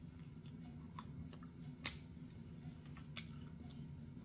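A person chewing a mouthful of butter-dipped pizza crust, with sharp wet mouth clicks about a second in, near two seconds and just past three seconds, over a steady low hum.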